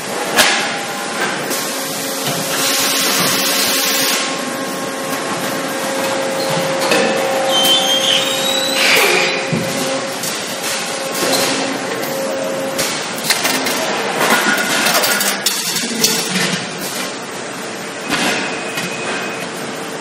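Automated solar water heater tank production machinery running: a steady machine hum with a held tone, a burst of air hiss about two and a half seconds in, and repeated metallic knocks and clanks throughout.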